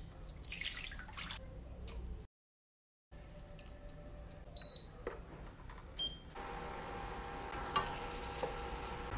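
Water poured into a nonstick wok. About half way through come two short electronic beeps, the second lower, like a cooktop's control panel. They are followed by a steady hum and hiss as the pan heats toward the boil.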